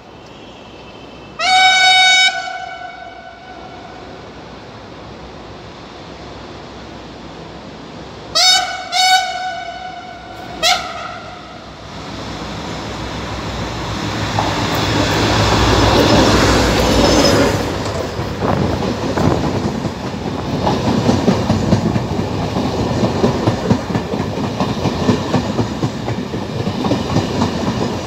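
A Henschel locomotive's horn gives one long blast, then three short blasts a few seconds later. The train then approaches and passes close by, loudest near the middle, with its coach wheels clattering rhythmically over the rail joints.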